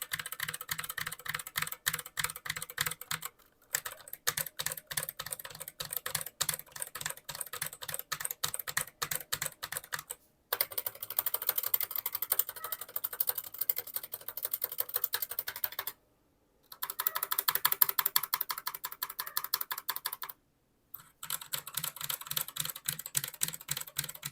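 Fast typing on a Redragon Magic Wand Pro mechanical keyboard with brown tactile switches and Akko keycaps: a dense run of key clicks and keycap clacks, stopping briefly four times.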